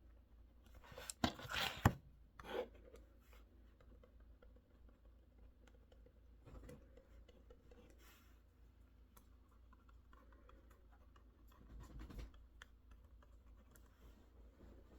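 Quiet desk handling noises: a brief scratchy rustle with two sharp clicks about a second in, then a few faint rubs and taps.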